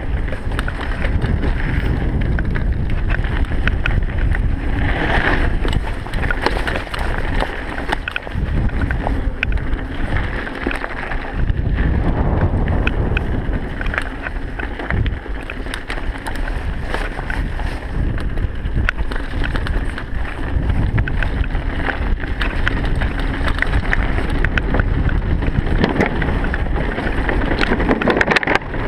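Mountain bike descending a dirt trail at speed: wind buffets the rider-worn camera's microphone, the tyres rumble over dirt and gravel, and the bike rattles and clicks over bumps.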